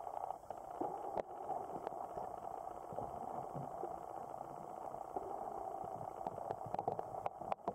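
Underwater sound picked up by a camera submerged in a lake: a steady, muffled rushing noise, with scattered sharp clicks that grow more frequent near the end.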